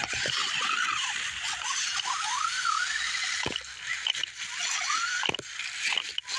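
RC rock crawler's electric motor and drivetrain whining, rising and falling in pitch as the throttle is worked, with its tyres spinning and scrabbling on rock. A few sharp knocks come through, the loudest about three and a half and five seconds in.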